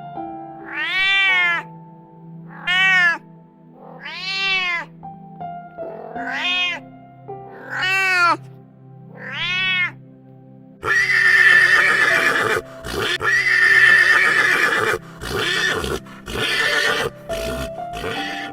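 A cat meowing six times, each call rising and falling in pitch, over background music with steady held notes. About eleven seconds in, a louder, rougher, noisy animal call takes over, in two long stretches followed by several shorter ones.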